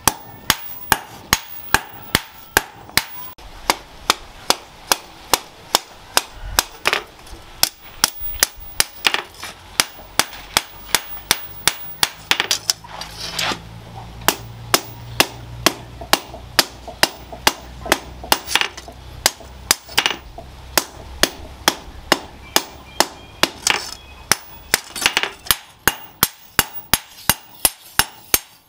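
Hammer blows on a red-hot steel machete blade lying on a metal anvil post, in a steady rhythm of about two to three sharp strikes a second, as the blade is forged to shape.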